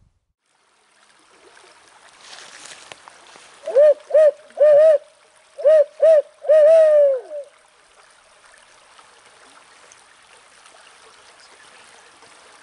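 Barred-owl hoot series in the 'who cooks for you, who cooks for you-all' rhythm, loud and close, starting about four seconds in: two short hoots, a doubled hoot, two more short ones, then a long hoot that slides down at the end. A stream rushes steadily underneath.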